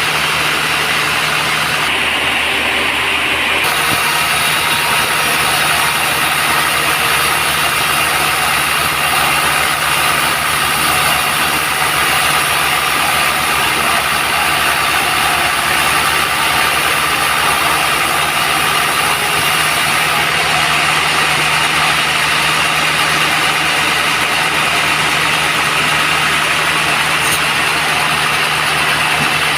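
Band sawmill running steadily, a loud continuous machine drone with steady tones, changing briefly about two seconds in.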